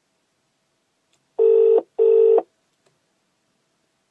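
British double-ring ringback tone on the BMW X5 E53's built-in car phone: one double ring about a second and a half in, two short steady tones close together. It is the sign that the dialled call is ringing at the other end and not yet answered.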